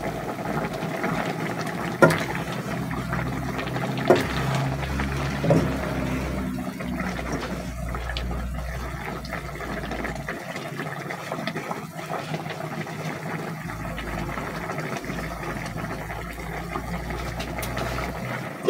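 Catfish adobo bubbling in an open pot while a utensil stirs it, knocking against the pot sharply three times in the first six seconds. There is a clink near the end as the glass lid comes back.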